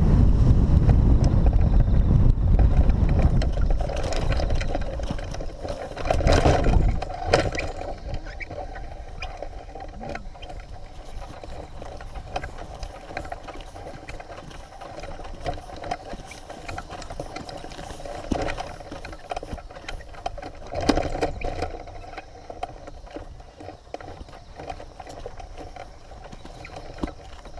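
Wind buffeting the microphone of a hang glider on its landing approach, fading out over the first few seconds as it slows and touches down. Then footsteps and rustling on grass as the pilot walks with the glider, with scattered knocks, the loudest about six to seven seconds in.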